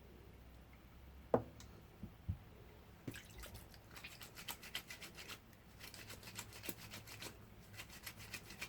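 Wet clothes being worked by hand with soap: faint, quick, irregular rustling and squishing from about three seconds in, after two single knocks.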